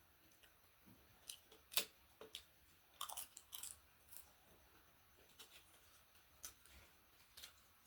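Faint sounds of a person chewing and eating a meal: scattered soft mouth clicks and crunches, the loudest about two seconds in and a small cluster around three seconds.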